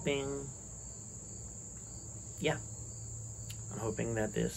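Insects chirring outdoors as a steady high-pitched drone, with a few short vocal sounds from a woman at the start, about halfway through and near the end.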